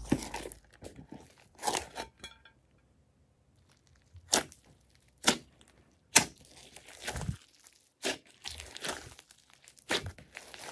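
Hands squeezing and stretching a large mass of mixed clay slime: a string of separate crackling squelches and pops, roughly one a second, with a pause from about two to four seconds in.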